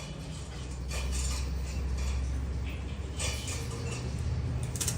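Metal tools or parts clinking against each other a few times, over a steady low machine hum.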